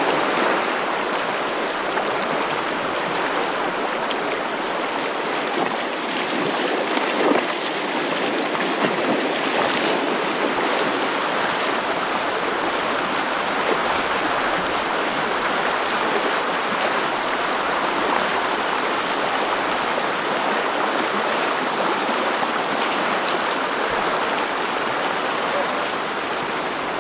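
A fast, shallow creek rushing over rocks: a steady, full rush of water.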